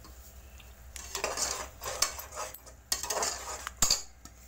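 Perforated metal spoon stirring and scraping through thick masala paste in a pressure cooker, mixing in freshly added ground spices. Three rounds of scraping, each ending in a sharp clink of the spoon against the side of the pot.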